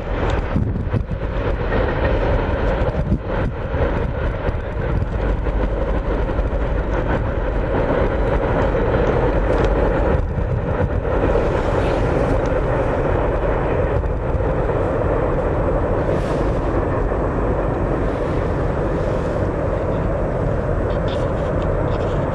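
Freight train rolling away along the track: a steady low rumble with no clear clicks or horn.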